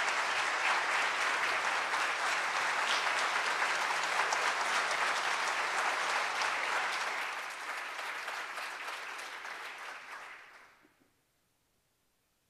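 Audience applauding, a dense patter of many hands clapping that thins out about seven seconds in and dies away by about eleven seconds.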